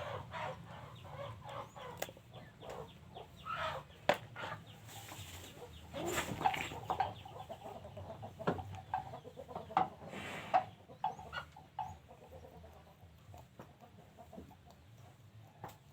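Chicken clucking and calling in short, repeated bursts, with a few sharp knocks scattered through, the loudest about four seconds in.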